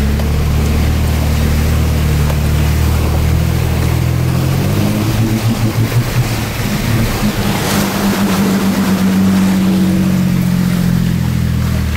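Off-road 4x4's engine running steadily as it drives through a flooded trail, with water washing around it. About five seconds in the engine note wavers, then settles higher as the truck climbs out of the water, with a brief splash near eight seconds.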